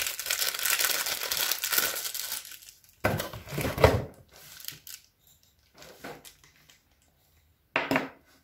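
A wrapper crinkling and tearing as a powder puff is unwrapped, for about the first two and a half seconds. After that come a dull knock and a few scattered handling noises.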